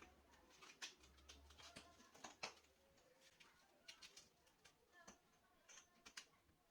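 Faint, scattered clicks and light taps, irregular, a dozen or so over several seconds.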